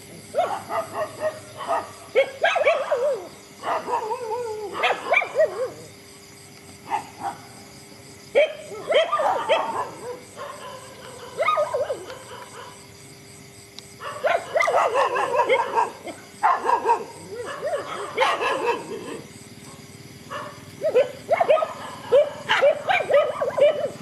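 Dogs barking and yipping in repeated bouts of quick calls, with short quieter pauses between the bouts.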